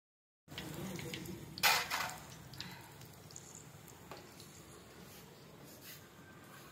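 Hot oil sizzling as battered green chili fritters deep-fry in a steel kadai, with a loud clatter of a slotted metal spoon against the pan about a second and a half in.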